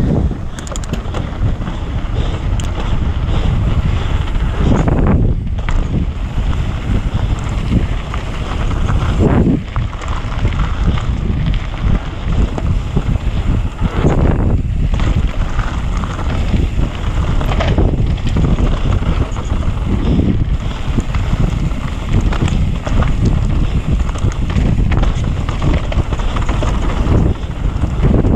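Wind buffeting the camera microphone of a mountain bike ridden fast downhill on a dirt trail, mixed with the rumble and rattle of the bike's tyres and frame over the ground. The noise is loud and continuous, with brief dips every few seconds.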